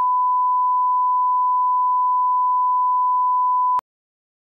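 Steady line-up test tone of colour bars: one pure, unchanging pitch that cuts off suddenly near the end.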